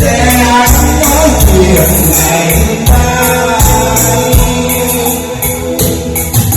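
Music: a Vietnamese song, a voice singing over band backing with a heavy bass beat.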